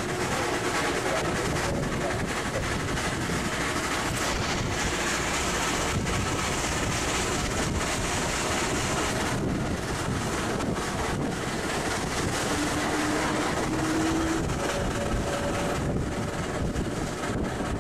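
Onboard running noise of a 1911 Stanley Model 85 steam car driving uphill: a steady mechanical rumble with wind buffeting the microphone. A faint rising whine comes in briefly about two-thirds of the way through.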